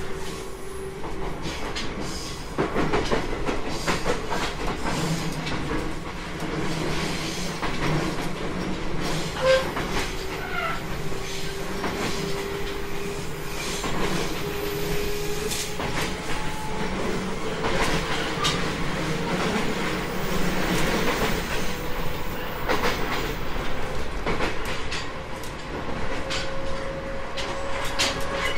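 JR East 719 series electric train running, its wheels clicking over rail joints. A thin whine from the drive rises slowly in pitch through the second half as the train gathers speed.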